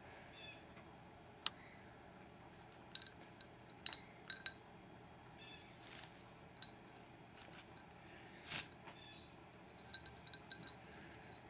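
A sun conure's beak clinking and tapping against a glass of iced tea and the lemon slice in it, in scattered light clicks, with a few short high-pitched tones, the loudest about halfway through.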